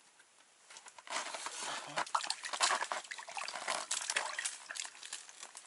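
From about a second in, water splashes and sloshes in an ice-fishing hole as a hooked fish is pulled up through it and handled at the edge, with a rapid run of irregular splashes and knocks.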